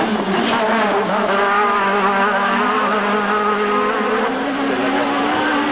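Renault Clio Maxi Kit Car rally car's four-cylinder engine at high revs, a loud buzzy note that holds steady and then steps up in pitch about four seconds in.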